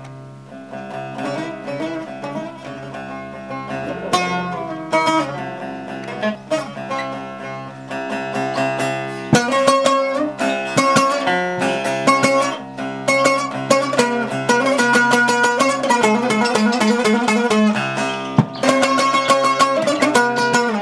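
Instrumental introduction to a Turkish folk song: plucked string instruments play a melody with no singing. The music grows fuller and louder about nine seconds in.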